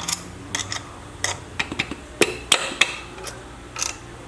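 Light hammer taps on metal engine parts: about a dozen irregular sharp strikes, each with a short metallic ring, the hardest a little past halfway.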